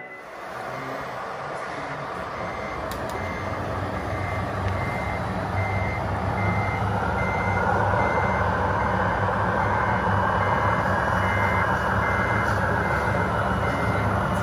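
Reversing beeper on a scale RC truck, evenly spaced beeps about once a second over a steady mechanical running noise that grows louder over the first several seconds.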